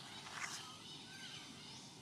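Several short, high-pitched animal chirps and squeaks over a soft outdoor background hiss. The loudest is a sharp call about half a second in, followed by a short falling call a little after one second.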